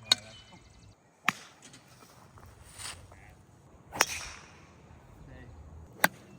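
Golf clubs striking balls: four sharp cracks, each followed by a short fading tail, with a brief swish between the second and third.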